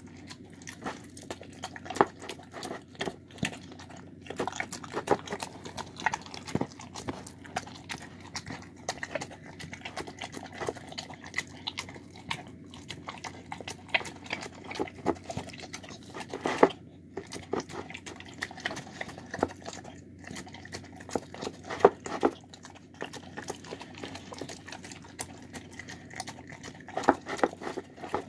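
Dog eating soft food of rice and shredded chicken from a plastic bowl: irregular wet chewing, licking and smacking, with a few louder sharp knocks scattered through.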